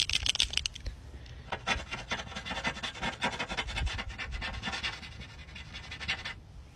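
Touch-up paint pen tip rubbing and tapping on car body paint as it fills a scratch: a run of quick, irregular scratchy ticks that stops shortly before the end.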